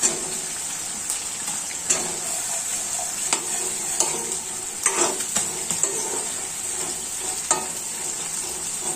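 Green banana pieces frying in oil and spice paste in a pan, with a steady sizzle. They are being stirred, and the utensil knocks and scrapes against the pan at irregular moments.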